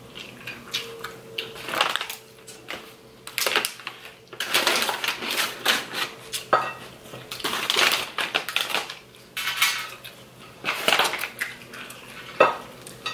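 Metal forks clinking and scraping on ceramic plates, with crunchy chewing of salad. A paper bag rustles in stretches as a breadstick is pulled out of it.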